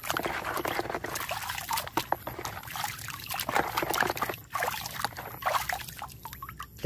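Water sloshing and splashing in a plastic basin of muddy, soapy water as a hand swishes through it, in a run of irregular quick splashes.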